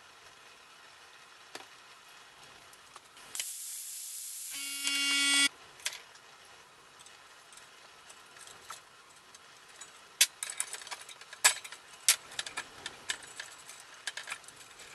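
A blast of air hissing through a small propane tube for about two seconds, turning into a whistle and cutting off sharply, as oil is blown out of the clogged line. Later comes a run of light metal clicks and taps from parts of the heater's burner and valve assembly being handled.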